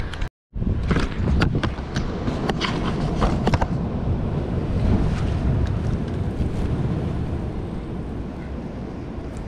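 Wind buffeting the camera microphone, a steady low rumble that eases a little toward the end. In the first few seconds a string of sharp knocks and scrapes as the camera is handled and set down on the rocks, after a brief dropout right at the start.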